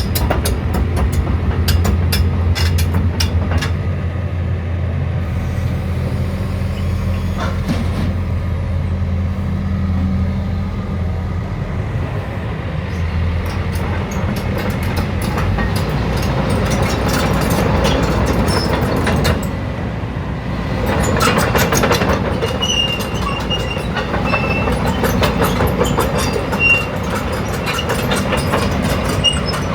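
JCB 220X tracked excavator's diesel engine running with a steady low hum that eases off about halfway through, over repeated metallic clanking and rattling from the machine.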